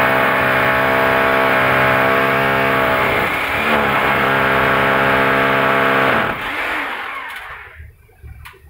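Electric hammer drill boring into a plastered masonry wall: a loud, steady motor whine with a hammering rattle. It eases off briefly about three and a half seconds in, runs again, then stops and winds down a couple of seconds before the end. The holes are for the dynabolt anchors of an air-conditioner outdoor-unit bracket.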